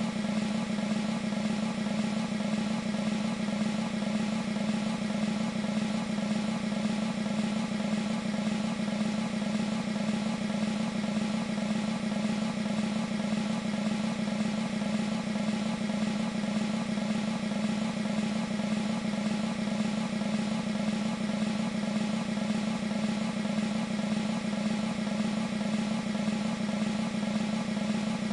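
Sampled military snare drum roll from an E-mu Proteus 2 sound module, held as one steady, unbroken roll at an even level.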